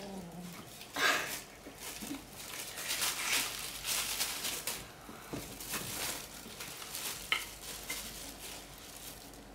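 Plastic bags rustling and crinkling in irregular bursts, the loudest about a second in, as a kitten scrambles over them and bats a pom-pom toy.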